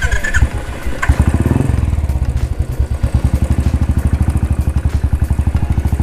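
Royal Enfield Thunderbird 350's single-cylinder engine idling with an even, steady thump, getting louder about a second in.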